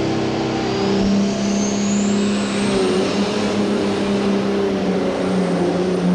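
Pro stock pulling tractor, a John Deere 4430, running hard under load during a pull, its engine note steady over a dense roar. A high whine rises over the first few seconds.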